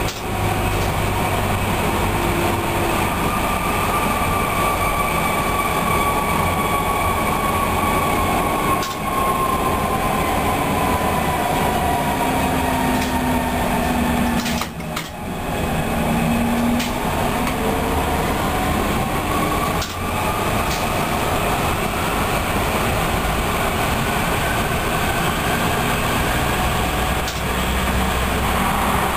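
Electric train running along the track, heard from on board: a steady rumble of wheels on rail with a motor whine that glides down in pitch and then climbs again. A few brief knocks come from the wheels passing over rail joints.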